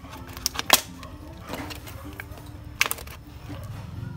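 Thin plastic bottle crackling and giving sharp pops as a pointed stick is jabbed through its wall to punch drainage holes. The loudest pops come just under a second in and again near three seconds in.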